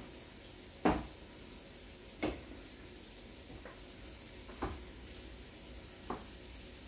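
Flour-dredged beef short ribs searing in hot oil, a faint steady sizzle, with several short knocks from things being moved on the counter; the first, about a second in, is the loudest.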